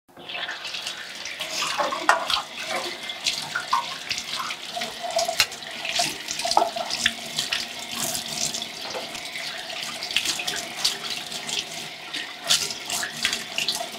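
Kitchen tap running into a stainless steel sink as dishes are washed under the stream by hand, with many short clinks and knocks from the dishes being handled.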